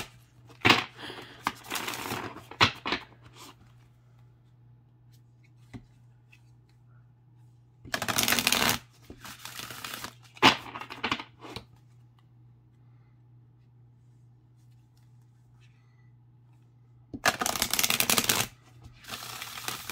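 A deck of oracle cards being riffle-shuffled by hand: two riffles, one about eight seconds in and one near the end, each a fluttering rush about a second long. Between them come shorter rustles and sharp clicks as the halves are bridged and the deck squared, with quiet pauses.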